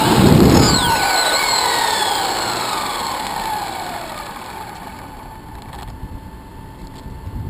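Axial Exo RC buggy's 4600kV four-pole brushless motor and drivetrain whining, the pitch sliding steadily down as the buggy slows to a stop. A brief low rumble comes right at the start.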